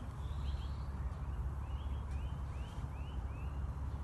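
A bird calling with a run of short chirps, each rising then falling, about two a second, over a steady low rumble.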